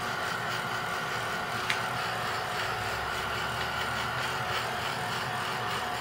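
Craft heat gun running steadily, its fan whining over the rush of hot air as it is played over the chair to melt down leftover glue strands.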